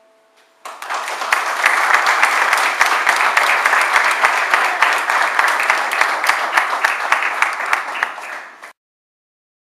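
Audience applauding: dense clapping that starts about a second in and cuts off suddenly near the end.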